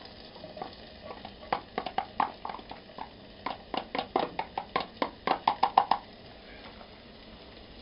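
Spoon knocking and clacking against a metal army mess tin in a run of sharp knocks, faster and louder toward the end, as minced meat is scraped into the pan. The knocks stop about six seconds in.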